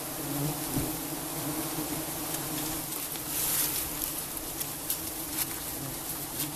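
A colony of giant honeybees (Apis dorsata) buzzing in a steady, dense hum around their open comb. Scattered sharp clicks run through it, with a brief hiss about halfway.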